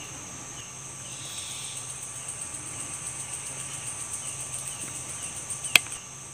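Night chorus of crickets and other insects: a steady, high-pitched pulsing trill with short chirps repeating through it. A single sharp click sounds near the end.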